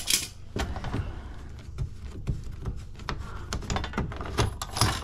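Irregular metallic clicks and taps from a brass thermostatic expansion valve and its copper capillary tubing being handled against an air handler's sheet-metal coil panel. The loudest clicks come at the very start and again near the end.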